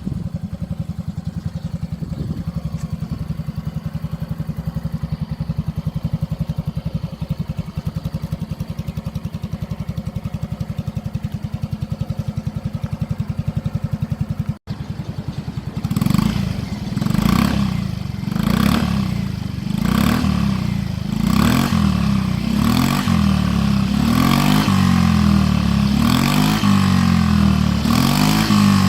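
Yamaha Axis Z scooter's single-cylinder four-stroke engine through an aftermarket OUTEX muffler, idling steadily at first. After a brief break about halfway, it is revved in a string of short throttle blips about a second and a half apart, the revs held longer near the end.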